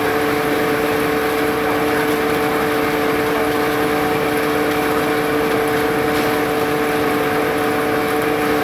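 Engine-driven field threshing machine running steadily while stalks of Job's tears are fed through it: a constant mechanical hum with a rushing rattle of stalks and grain passing through the drum.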